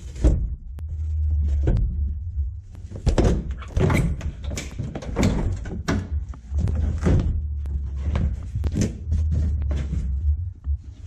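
Repeated knocks, thumps and rustling as an old fabric headliner is pulled down from a pickup cab's roof and handled, with a low steady hum coming and going underneath.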